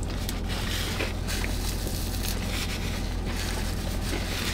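Crunching and chewing of crispy breaded fried chicken sandwiches, with scattered short crunches over a steady low rumble inside a car.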